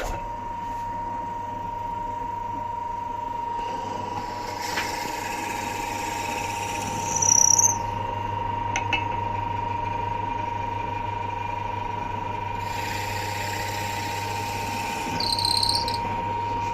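Pillar drill motor switched on and running with a steady hum, its 8 mm bit twice cutting into beech wood, each cut a few seconds long with a high squeal, about seven seconds in and again near the end.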